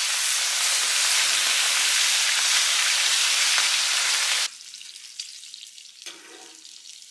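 Whole flat fish frying in hot oil in a wide pan, sizzling loudly and steadily; the sizzle cuts off sharply about four and a half seconds in, leaving only faint crackling.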